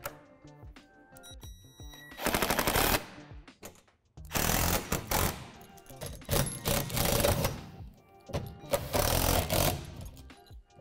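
Cordless power driver running in four short bursts, each about a second long, as it drives fastening hardware through plastic playset wall panels into the support pole. Each run has a rapid rattling quality. Background music plays underneath.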